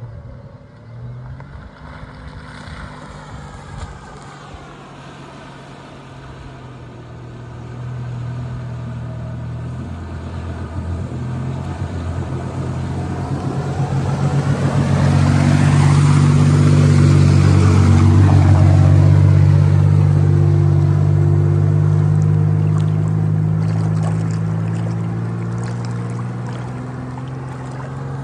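Pickup truck with a snorkel wading through deep water: its engine runs at steady low revs while water washes and splashes around it. The sound grows louder as the truck comes close, is loudest a little past halfway, then fades as it drives on.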